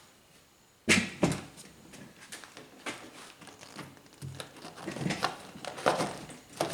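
Wooden parts being handled in a workshop: a sharp knock about a second in, a second knock right after, then a run of lighter clicks and taps.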